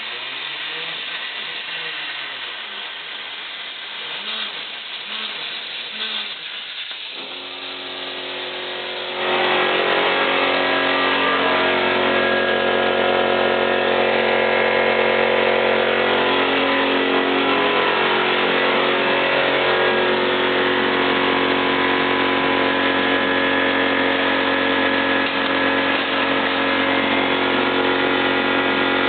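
CNC plasma cutter: a fainter machine noise at first, a steady hum setting in about seven seconds in, then about two seconds later the plasma arc starting and cutting with a loud, steady hiss and buzz.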